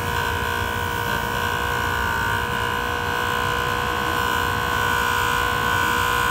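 Jooltool polishing machine's electric motor running steadily with a high, even whine, its spinning wheel polishing a stainless steel Rolex clasp to remove pits.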